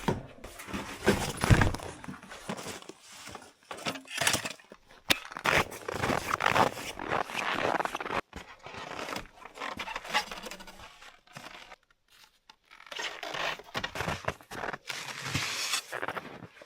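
Irregular scraping and rustling handling sounds with a few sharper knocks, easing off briefly about twelve seconds in.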